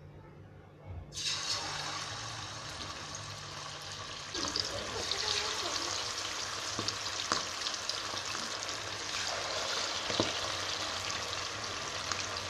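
Marinated whole quail being deep-fried in hot oil. The sizzling starts suddenly about a second in as they hit the oil, and gets louder again about four seconds in as more go in, with a few small clicks.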